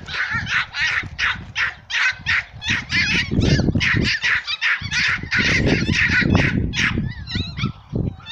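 Dogs barking steadily and rapidly, about three barks a second, with wind gusting on the microphone in the middle.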